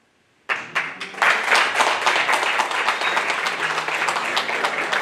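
An audience applauding with many hands clapping. It starts about half a second in and quickly builds to dense, steady applause.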